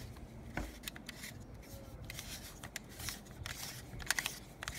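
Scattered light clicks and scraping of a castle-nut wrench turning the forend castle nut off the threaded magazine tube of a Remington 870 shotgun, metal and polymer parts shifting in the hand.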